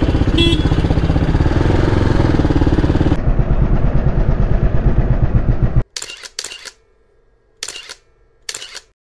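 Sports motorcycle's single-cylinder engine running at low revs with an even pulsing beat. About three seconds in the sound turns duller. From about six seconds it breaks into a few short snatches of noise with near silence between them.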